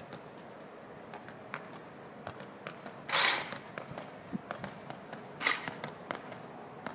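Light, irregular footfalls and taps of a hurdle drill, with two louder noisy brushing bursts about three and five and a half seconds in.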